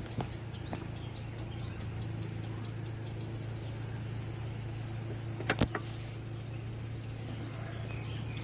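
Honeybees humming steadily around an opened hive during a frame inspection, with a fast faint ticking high up and one sharp knock about five and a half seconds in.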